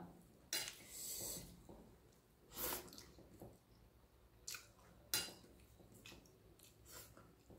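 Fingers mixing rice on a stainless steel plate: a few faint, short clicks and scrapes of fingertips and food against the metal, spread out over several seconds.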